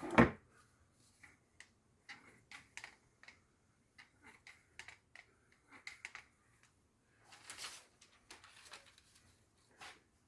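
Light, scattered clicks and ticks of a sharpened garden cutting tool being handled and its blades worked open and shut, with a sharp clack right at the start and a brief rustle about seven and a half seconds in.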